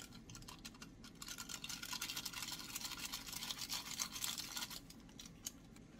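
Dry topping flakes shaken from a small packet onto a bowl of instant noodles: a fine, dense crackling patter that starts about a second in and stops shortly before the end.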